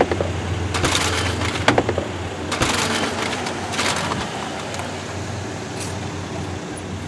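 Car running with a steady low hum, with a series of short rustling, crunching noises and clicks in the first few seconds, as of someone moving about inside the car.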